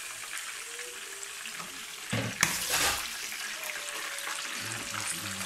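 Food frying in oil in a pan on a gas stove, a steady sizzle. About two seconds in, a louder burst of clattering and scraping as a pan is handled on the stove.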